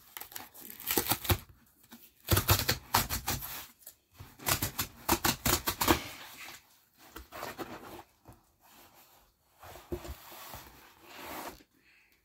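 Packaging being torn and handled by hand: rapid crackling, tearing bursts in three spells over the first half, then softer rustling.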